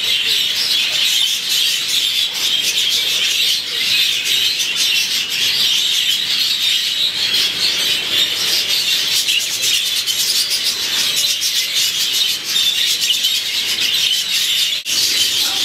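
Many budgerigars chattering and warbling together in a steady, dense chorus of fast twittering.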